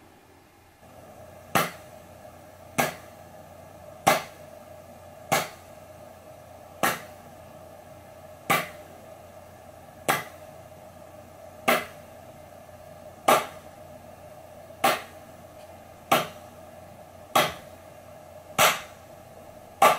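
Recorded hand claps played back over Bluetooth through a Bluesound Pulse Flex 2i wireless speaker in a latency test: single sharp claps, about one every second and a half, over a faint steady hum.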